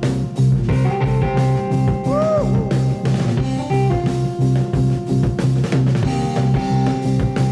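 Instrumental passage of an early-1970s hard rock track: drum kit, electric guitar and bass playing together, with one held note bent up and back down about two seconds in.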